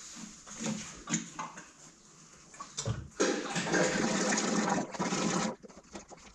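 Hydraulic oil poured from a plastic bucket into a loader's hydraulic tank: a steady pouring rush starts about three seconds in and cuts off abruptly about two and a half seconds later. A few light knocks of the bucket being handled come before it.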